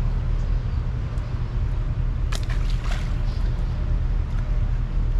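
Steady low rumble of traffic on the concrete bridge overhead, droning without a break. About two and a half seconds in, a short burst of sharp clicks and rattles.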